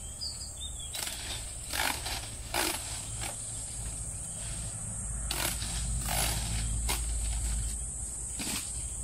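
Outdoor background with a steady high-pitched insect drone and a low rumble, broken by scattered short knocks every second or so and a brief chirp just after the start.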